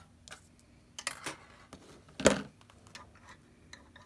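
Scattered light clicks and clinks of metal wire binding and a wire cutter being handled, with one louder, duller knock a little past two seconds in.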